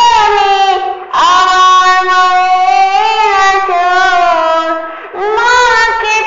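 A young female voice singing a Bengali Islamic gojol, unaccompanied, in long held phrases. There are short breaks for breath about a second in and again about five seconds in.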